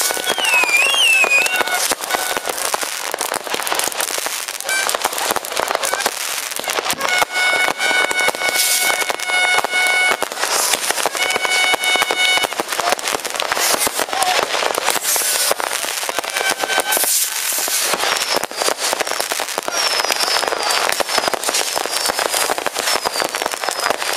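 Many fireworks going off at once in a continuous barrage of sharp bangs and crackles, with high whistling tones rising over it now and then.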